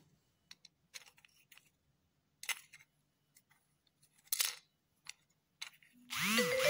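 Scattered light clicks and taps of small hard parts being handled. About six seconds in, a wireless home alarm kit's electronic chime sounds loudly with gliding, arching tones.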